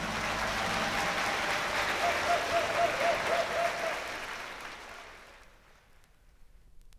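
Audience applauding at the end of a live song, the applause fading out about five seconds in.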